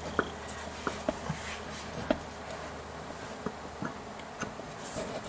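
Light, irregular clicks and taps of metal as the crankshaft pulley is worked onto the crank snout and its key is lined up, over a steady low hum.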